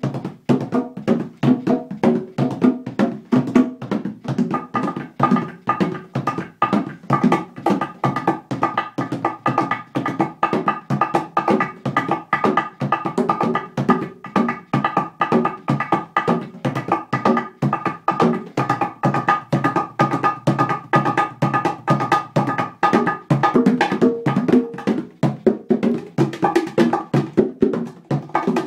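A pair of bongos played by hand in a fast, steady 4/4 djembe-style rhythm: several strokes a second, with sharp high slaps over the ringing tones of the two drumheads.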